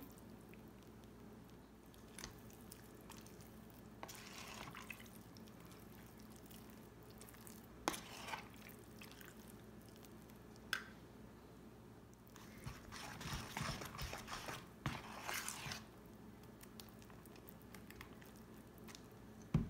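Spoon stirring a thick, wet batter in a stainless steel bowl: faint, soft wet stirring and scraping in short spells, with a few light clicks of the spoon against the bowl.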